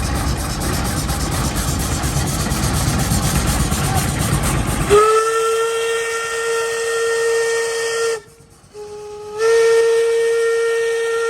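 Steam traction engine hissing and rumbling, then its steam whistle blowing a long steady note about five seconds in. The whistle breaks off briefly with a short lower toot and then sounds again.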